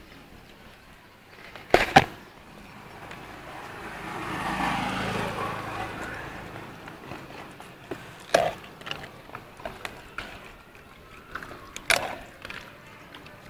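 Two sharp knocks about two seconds in, then a vehicle passing on the road, its noise swelling and fading over a couple of seconds. Scattered knocks and clatter follow near the end.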